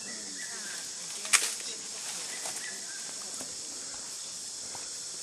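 Elephants browsing in dry brush: faint rustling and scattered ticks of twigs, with one sharp snap a little over a second in, over a steady high hiss.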